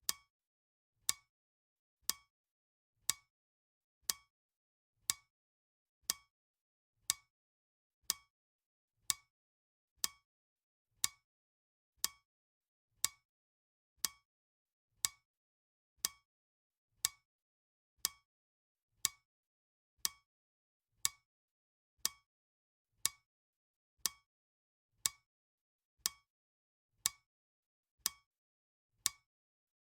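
Clock ticking at a steady one sharp tick a second.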